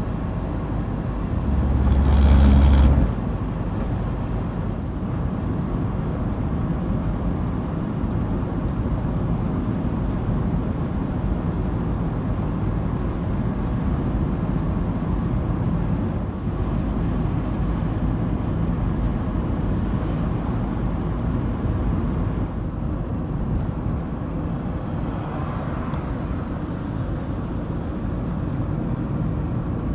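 Steady road and engine noise heard from inside a Ford Transit van's cab while driving, a low rumble with tyre and wind hiss. About two seconds in, a louder low rumble and rush swells for a second or so, then drops back.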